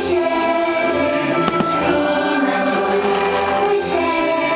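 Fireworks-show soundtrack: orchestral music with a choir singing held notes. A couple of sharp firework pops come about a second and a half in.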